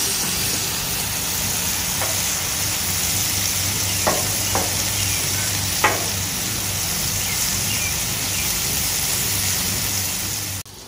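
Ground beef slider patties and diced onions sizzling steadily on a Blackstone flat-top griddle, with a few brief crackles. The sizzle cuts off abruptly near the end.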